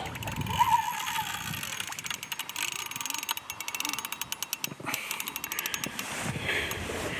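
Fishing reel ratcheting in a fast run of clicks while a large wels catfish is played on the line; the clicking stops about five seconds in.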